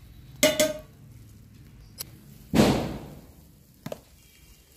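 A quick double knock, then a louder thud with a short fading tail about two and a half seconds in, with a couple of faint clicks between.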